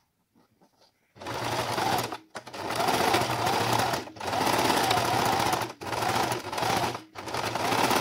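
Electric household sewing machine stitching through a folded cloth face mask, starting about a second in and running in several short runs with brief stops between them. A steady motor hum with a slightly wavering whine.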